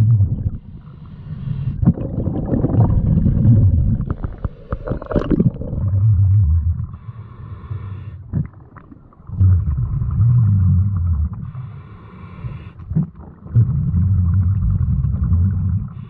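Scuba diver breathing through a regulator underwater: a short hiss on each inhale, then a low rumbling gush of exhaled bubbles lasting about two seconds, in a cycle of roughly five seconds. A cluster of sharp clicks comes around the fifth second.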